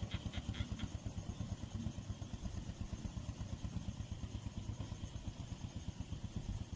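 A small engine running steadily, a low throbbing rumble. A rapid high chirping, about six pulses a second, fades out about a second in.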